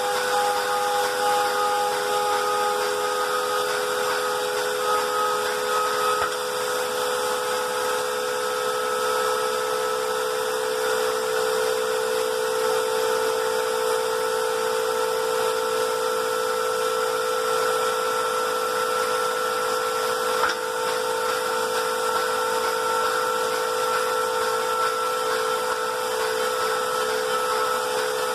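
Moore jig grinder's spindle running a CBN wheel that is roughing out a pocket: a steady whine over a grinding hiss, with a single short tick about twenty seconds in. The aggressive cut also dresses the built-up edges of the wheel.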